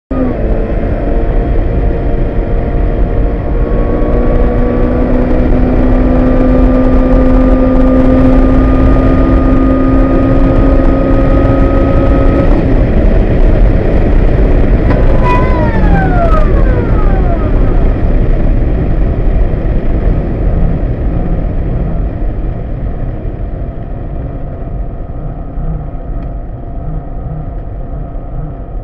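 A motor vehicle running with a loud noisy drone and a steady hum that climbs slowly in pitch, then breaks off about 12 seconds in. A high whine glides sharply down in pitch about 15 seconds in, and the noise then slowly fades. This is the 'bad sound' of the vehicle.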